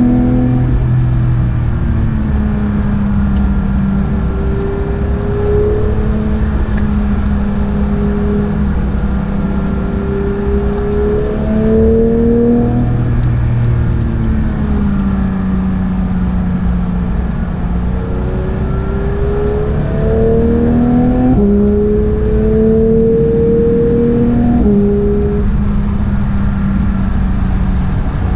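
Porsche 911 GT3 (992)'s 4.0-litre naturally aspirated flat-six engine on track, its note rising and falling with throttle through corners and straights. The PDK gearbox changes gear with sudden steps in pitch, twice in quick succession about three-quarters of the way through.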